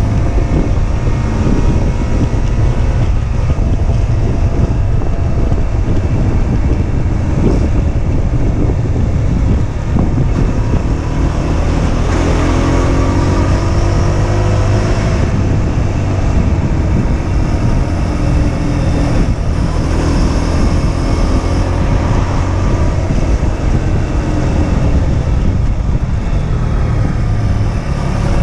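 Husqvarna Svartpilen 125's single-cylinder 125 cc engine running under way on the road, its note rising and falling with the throttle and gear changes, over a heavy rumble of wind and road noise.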